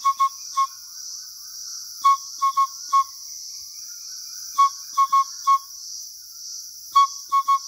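A man whistling an imitation of the collared owlet's call by mouth: clear, low, evenly pitched hoots in groups of four (one note, two in quick succession, then one), with a group about every two and a half seconds.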